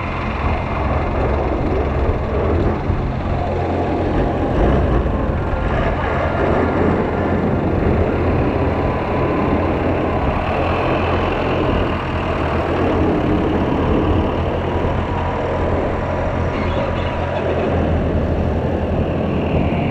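Strong wind buffeting the microphone, a steady loud low rumble with a rushing haze over it.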